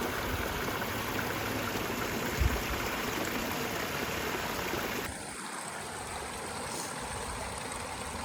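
River water flowing with a steady rushing noise. About five seconds in it drops abruptly to a quieter rush, and a brief falling tone sounds at that moment.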